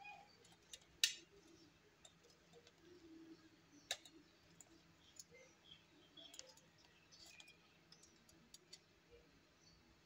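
Faint clicks and taps of eggs being handled in a steel plate, with two sharper clicks about a second and about four seconds in.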